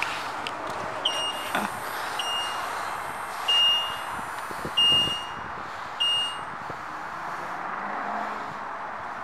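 A high electronic beep sounds five times, about once a second, the middle ones a little longer, then stops. A faint click comes about a second and a half in, over a steady background hiss.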